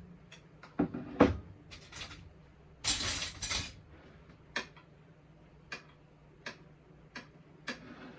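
Kitchen clatter of dishes and utensils: a couple of hard knocks about a second in, brief scraping or rustling around three seconds, then light clicks and taps about once a second.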